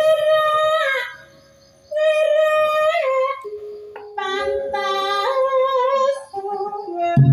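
A Javanese woman singer (sindhen) singing a slow, nearly unaccompanied vocal line: long held notes that slide between pitches, in three phrases with a short break about a second in.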